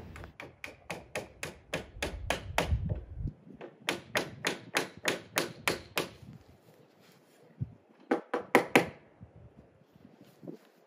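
Hammer tapping shims in between a 2x4 brace and a bent deck post. Quick light blows come about four a second in two runs, with a short burst of a few more near the end.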